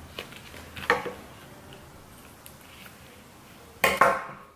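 Scissors cutting open a sauce packet, with brief crinkles of the packet: a short sharp sound about a second in and a louder one near the end.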